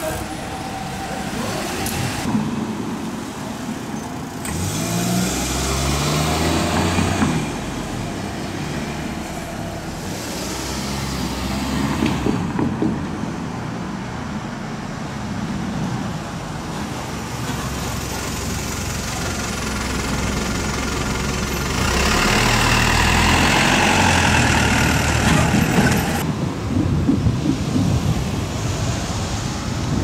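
Road traffic on a narrow street: cars going by one after another. About five seconds in, a car engine rises in pitch as it speeds up, and the loudest vehicle passes about three quarters of the way through.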